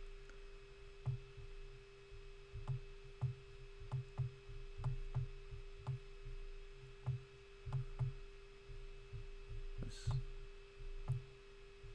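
Faint, irregular soft clicks and low thumps of a computer mouse being clicked and dragged on a desk, over a steady electrical hum.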